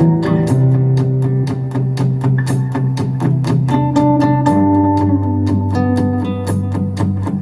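Live band playing an instrumental passage with no singing: acoustic guitar over a steady drum beat, with sustained bass notes that change twice.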